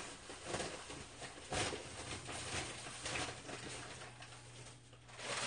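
Scattered light knocks and clatter of dishes and utensils being handled at a kitchen counter, over a steady low hum.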